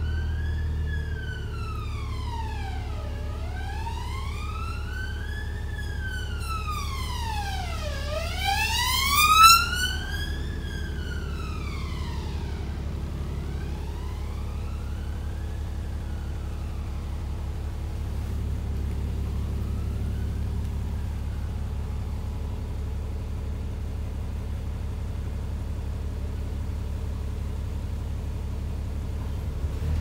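An emergency vehicle's siren wailing, rising and falling in pitch about every five seconds. It grows loud as it passes, about eight to ten seconds in, then fades away by about twenty seconds. Under it runs the steady low drone of the Enviro400 double-decker bus's diesel engine, heard from inside the bus.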